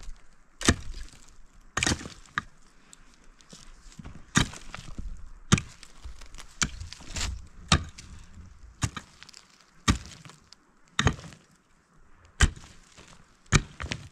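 Pickaxe blade striking hard, stony soil again and again, about one blow a second, while a trench is dug by hand.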